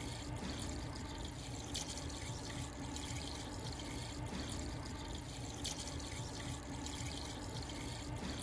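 Screen wash pouring in a steady stream from a large bottle into the filler neck of a Jaguar XE's windscreen-washer reservoir, the liquid splashing into the reservoir without a break.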